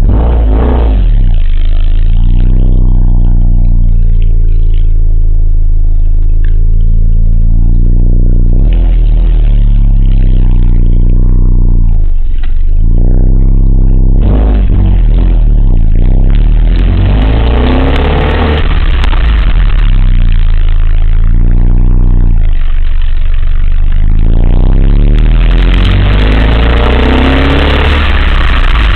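Car being driven, heard from inside the cabin: engine note rising and falling with speed over steady road noise. From about halfway on, a louder rushing noise with sharp clicks and rattles on top, the kind of suspension noise being chased after fitting aftermarket coilovers.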